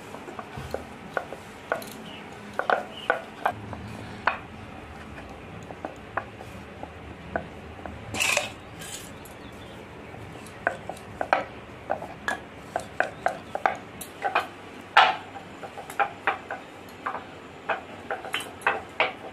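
Wooden rolling pin rolling dough on a round wooden board, giving short, irregular clicks and knocks of wood on wood, sparse at first and coming several a second in the second half.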